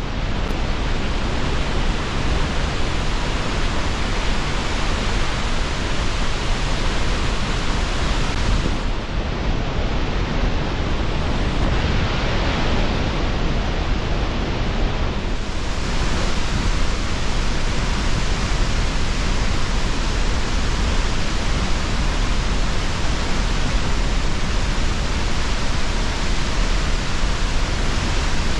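Waterfall roaring steadily: the even rush of a large volume of falling water.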